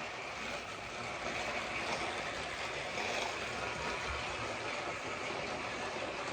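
Several battery-powered TrackMaster toy train engines running together on their track, a steady high-pitched whirring of small electric motors and gears.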